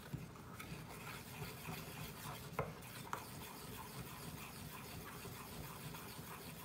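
A spoon stirring and scraping thick gesso paste around a stainless steel bowl, a steady soft rubbing with a couple of light clinks against the bowl about halfway through.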